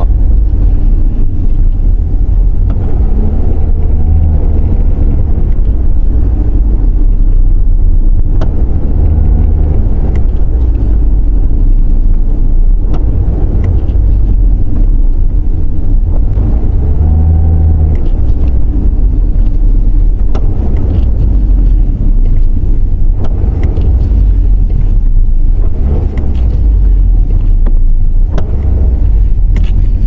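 Toyota C-HR heard from inside the cabin while driving: a steady, loud low rumble of road and engine noise. The engine note rises and falls back about three times as the throttle is pressed and released, during a test drive to reproduce a clunk that comes when stepping on the accelerator after braking. A few brief clicks are heard.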